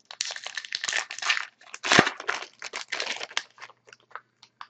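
Foil wrapper of a hockey card pack being torn open and crinkled, with a sharp snap about two seconds in, then quieter crackles as the wrapper is handled.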